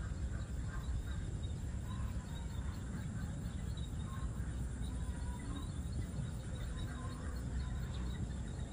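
Outdoor rural ambience: a steady low rumble with faint short bird chirps and insect calls, and no single event standing out.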